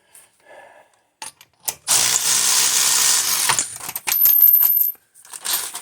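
Milwaukee cordless power tool running for about a second and a half, then rapid clicking with a high whine as it works a lug nut on a wheel, with small metallic clinks of the nut and washer around it.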